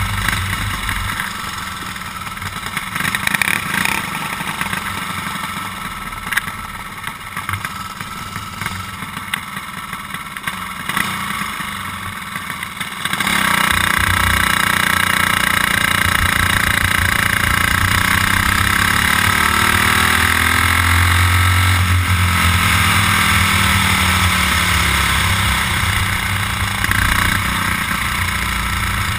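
Racing kart's small single-cylinder engine heard onboard while the kart laps the track; about halfway through it suddenly gets louder, and its pitch then dips and rises again.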